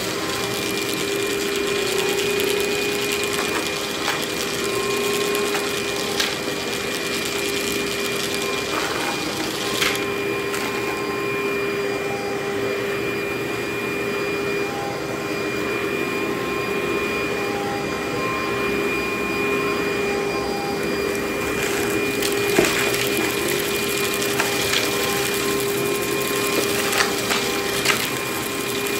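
Upright vacuum cleaner running with a steady motor hum and a thin high whine as it is pushed back and forth over a rug. A few sharp clicks and light crunches come through as grit and debris are sucked up.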